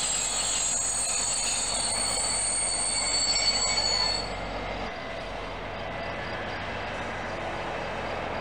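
A DB Class 218 diesel locomotive and its regional coaches running past. A high-pitched squealing whine sounds over the rumble of the train and cuts off about four seconds in, leaving a quieter, steady rumble.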